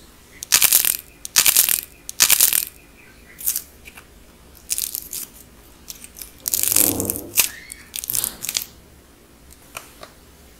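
Dried clay with a gold-painted crust cracking and crunching as it is squeezed and broken apart between fingers. It comes in a series of short crackly bursts: three loud ones in quick succession at the start, then several more, the longest and fullest about two-thirds through, and a last faint one near the end.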